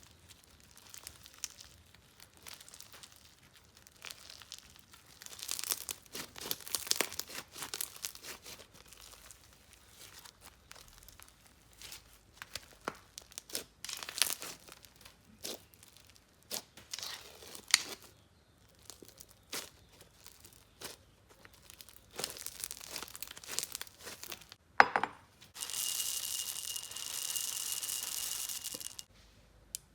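Slime being stretched, squeezed and pulled apart by hand: irregular sticky crackling, popping and tearing sounds in short bursts. Near the end there is a steady hiss lasting about three seconds.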